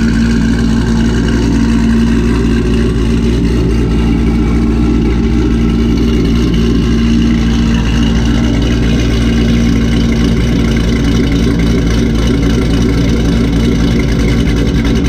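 Corvette C5 Z06's cammed LS6 V8 idling steadily through long-tube headers, a catless X-pipe and Corsa Extreme axle-back exhaust, a deep even purr from the tailpipes.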